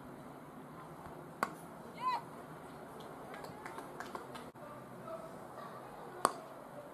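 Cricket bat striking the ball: two sharp cracks about five seconds apart, over faint open-ground ambience with a brief distant call between them.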